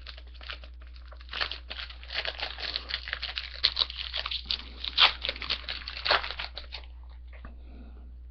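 A hockey card pack wrapper being torn open and crinkled: a dense crackling that starts about a second in and lasts about five seconds, then stops.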